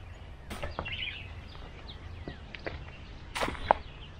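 Outdoor ambience with a low rumble and faint bird chirps, broken by scattered sharp clicks and crackles, the loudest two close together near the end.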